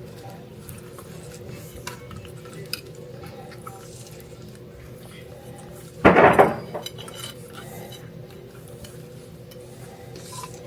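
Kitchen dishes and utensils being handled: scattered light clinks and taps over a low steady hum, with one louder clatter about six seconds in.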